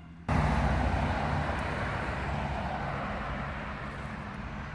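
A road vehicle going by close at hand: a loud rumble and tyre hiss that comes in suddenly and then slowly fades away.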